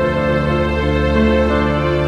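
Slow background music with long held notes.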